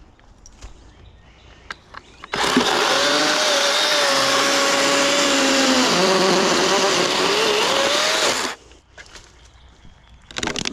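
Kobalt electric chainsaw cutting into dense, resin-soaked pine fatwood. It starts abruptly about two seconds in and runs for about six seconds. The motor's pitch drops as the chain bites deeper and rises again just before it stops suddenly.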